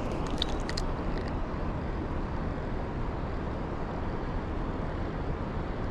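Steady rush of river rapids, an even, unbroken noise, with a few faint clicks in the first second.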